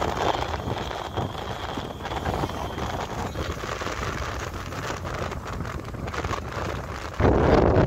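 Wind buffeting the microphone of a moving two-wheeler, over a steady rumble of engine and road noise; the wind turns suddenly louder about seven seconds in.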